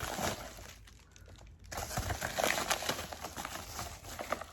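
A package's wrapping being pulled open and handled: crinkling and rustling with small crackles, stopping for a moment about a second in, then resuming.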